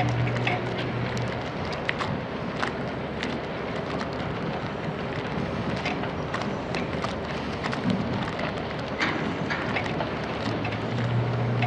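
Doosan DX160W wheeled excavator working a stockpile: a steady rushing noise full of scattered sharp clicks and clatters of loose material, with the diesel engine's low hum coming up strongly at the start and again near the end.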